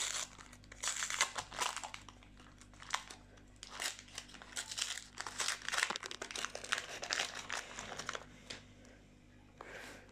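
Trading-card pack wrapper crinkling and tearing as hands pull it open, in irregular bursts that die down near the end.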